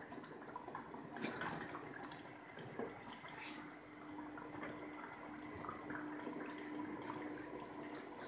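Beef karahi gravy cooking in oil in a steel karahi: faint, soft bubbling with small scattered pops.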